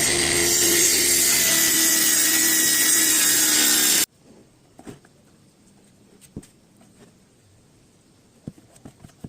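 Handheld trim router running as it trims the edge of a high-pressure laminate (HPL) sheet: a loud, steady whine with cutting noise. It stops abruptly about four seconds in, leaving only a few faint taps and clicks.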